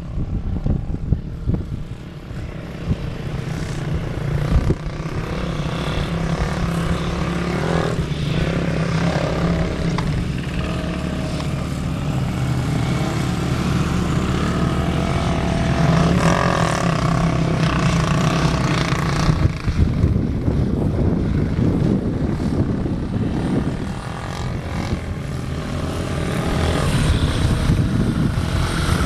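Motorcycle engine running under way while riding, holding a steady note for most of the time, which breaks up and becomes rougher about two-thirds of the way through.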